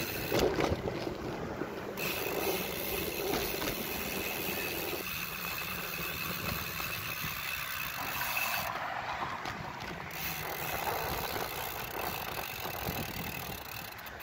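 Steady wind rush and buffeting on the microphone of a phone carried on a moving bicycle, with tyre and road noise underneath.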